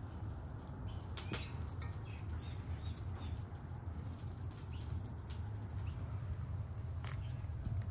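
Steady low outdoor rumble with scattered sharp clicks and taps from hands working food and a metal skewer, and a few short bird chirps.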